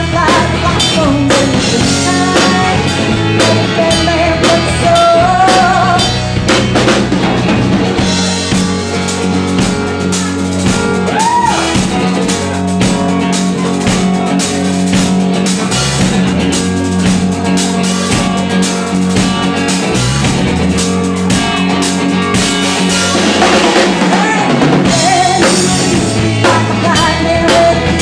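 Live rock band playing a mostly instrumental stretch of a song, the drum kit to the fore with snare, bass drum and cymbals; a wavering sung or lead line comes in over it in the first few seconds and again near the end.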